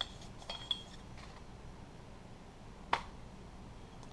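A few faint light clicks, then one sharper click about three seconds in, from handling a Crosman air pistol's metal tube and the homemade sandpaper-wrapped polishing tool inside it.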